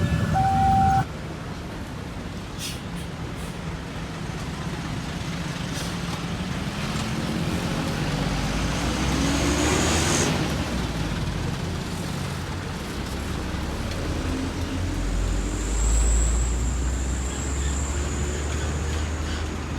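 A bus's telolet musical horn finishes its tune about a second in. Then road traffic: a heavy vehicle passes with a rush that swells and fades, loudest about ten seconds in. Near the end come a deep engine rumble and a high thin whine.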